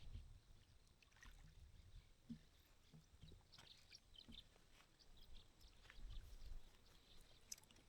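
Near silence: faint outdoor ambience with a low rumble and scattered small clicks and ticks.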